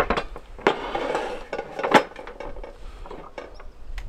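Camp cookware and utensils being handled: a series of sharp clinks and knocks with a short scraping stretch, and one loud knock about two seconds in.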